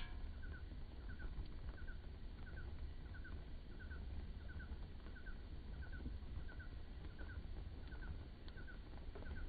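A small animal calling in a steady, even series of short double chirps, over a constant low rumble and an occasional sharp click.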